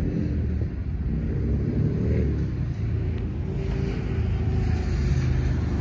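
Steady low rumble of street traffic, swelling as a vehicle passes about halfway through.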